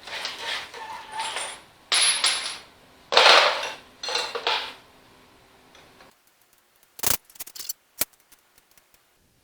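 Wrenches loosening the jam nuts on a tractor's clutch rod: irregular metal scraping and clinking, loudest about three seconds in, then a few sharp metallic clicks near the end.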